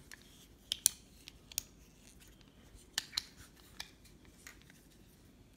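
Sharp plastic clicks and light clatter from a Transformers action figure being handled as its parts are moved. The clicks are scattered and irregular: a pair a little under a second in, a few more soon after, another pair about three seconds in, then fainter ones.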